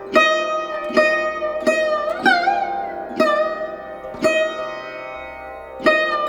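Background music on a plucked string instrument: single notes plucked one after another, each ringing and fading, some sliding up or down in pitch.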